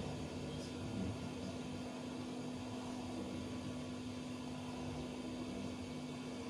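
Quiet room tone: a low steady hum with faint hiss, no voice.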